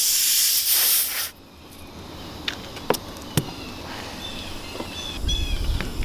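A loud, steady hiss that cuts off suddenly about a second in. Then a few soft sharp clicks and faint high chirps.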